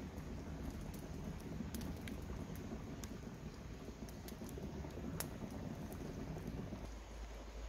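Open wood fire burning under a cooking pot, crackling with scattered sharp pops over a low steady rush that eases near the end.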